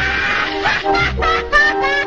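Orchestral cartoon score music, with short sliding, wavering high notes over held lower notes.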